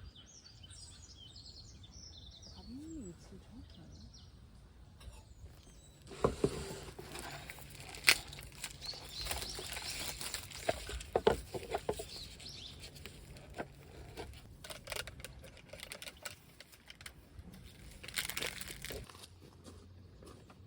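A few bird chirps at first. From about six seconds in, a long stretch of crackling and rustling with several sharp clicks that dies down near the end.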